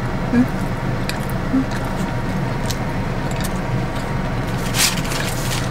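Steady low hum of the car running, heard inside the cabin, with a few small clicks and a brief rustle about five seconds in.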